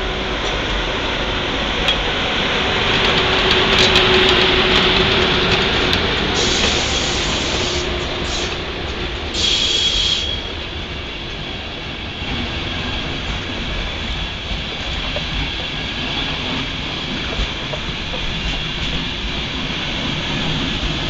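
Passenger coaches of an express train hauled by a ČD class 150 electric locomotive rolling past slowly as it departs: steady wheel-on-rail rumble with some clatter over the track, loudest about four seconds in.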